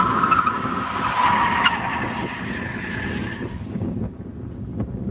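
A drifting car's tyres squealing as it slides through a bend, with its engine running. The squeal fades out about three and a half seconds in as the car draws away.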